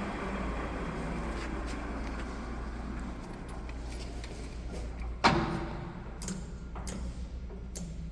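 Lathe running with a steady mechanical noise, a single sharp clunk about five seconds in, then several lighter clicks.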